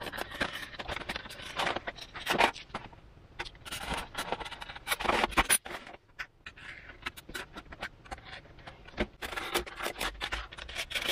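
Snap-off utility knife blade scraping and slicing through Depron foam sheet in irregular strokes, with small clicks and taps of a steel ruler being set down and held on the foam.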